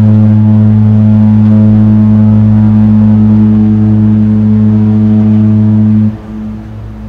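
A large cruise ship's horn, Mein Schiff 1's, sounding one long, low, steady blast for its departure from harbour. The blast cuts off abruptly about six seconds in.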